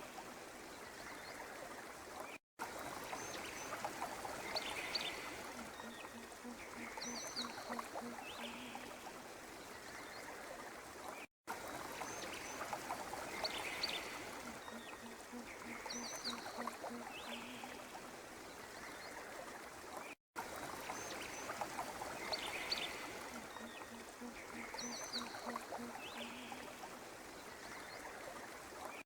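A recording of running water with short high chirps and a low pulsed call. It repeats about every nine seconds, broken each time by a brief dropout to silence.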